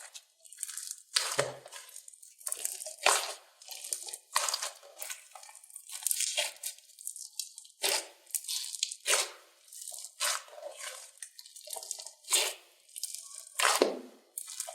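Slime being squeezed, stretched and pulled apart by hand, in a run of short noisy bursts about once a second.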